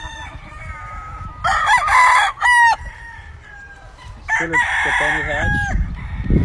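Rooster crowing twice, each crow lasting over a second, the second starting about four seconds in.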